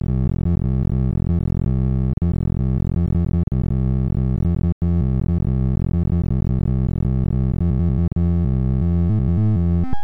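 Heap sort sonification: synthesized tones, one for each array value touched, forming a dense, buzzing cluster of low pitches that shift in rapid steps as the last small elements are sifted into place. It cuts out briefly a little before halfway, and right at the end a rising run of tones begins as the sorted array is checked.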